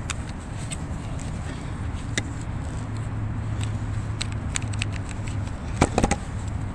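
Handling noise from an on-camera microphone with a furry windscreen being gripped and moved: scattered clicks and rubbing, with a few louder knocks about six seconds in, over a low steady rumble.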